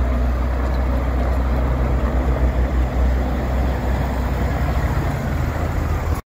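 Ford L9000 heavy truck's diesel engine idling steadily, a low rumble that cuts off abruptly near the end.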